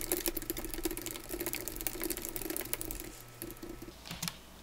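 Fast typing on a compact wireless keyboard with round keys: a rapid run of key clicks that thins out and stops about three seconds in, with a few last clicks near the end.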